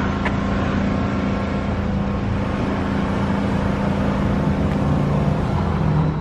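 Steady low mechanical hum of a running motor, with a second, lower hum joining about four and a half seconds in.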